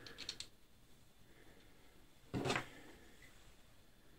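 Faint small clicks of a plastic 3D-printer part and screw being handled, then one short clatter about two and a half seconds in as a screwdriver is taken up.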